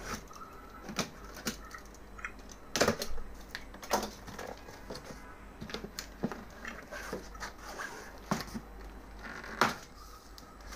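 A cardboard printer box being opened by hand: flaps pulled back and paper and cardboard inserts handled, giving irregular rustling, scraping and scattered sharp knocks.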